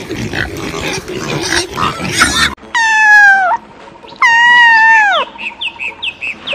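Pig grunting over rough background noise, then two long high-pitched squeals of about a second each that drop in pitch at the end, followed by a run of short high squeaks.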